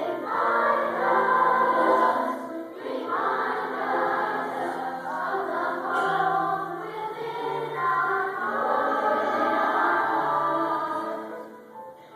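Choral music: several voices holding sung notes over a low line that changes pitch every second or two, fading down near the end.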